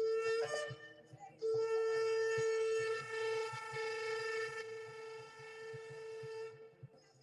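Shofar (ram's horn) blown: a short blast that breaks off about half a second in, then one long held blast of about five seconds on a steady pitch with a slight waver.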